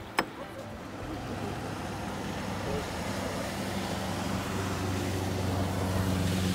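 Motorboat engine running with a steady hum that grows louder, over water and wind noise. A single sharp click comes just after the start.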